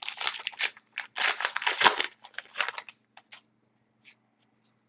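Foil wrapper of a trading card pack being torn open and crinkled for about the first two and a half seconds, followed by a few soft clicks of cards being handled.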